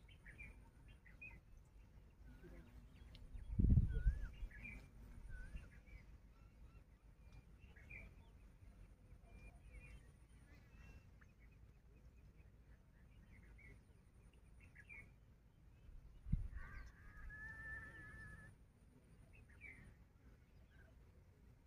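Birds chirping and warbling around a pond, with a faint high insect buzz coming and going. There is a low thump about 4 s in and another about 16 s in, the second followed by a nasal, honk-like call lasting about two seconds.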